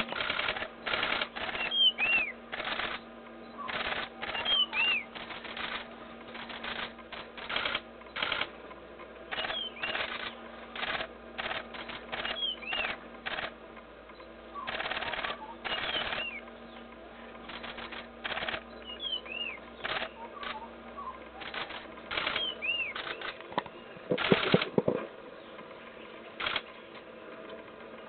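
Camera shutters firing in rapid bursts of clicks, over and over, with a loud cluster about three-quarters of the way through. Among them a bird repeats a short, high, arched call every couple of seconds.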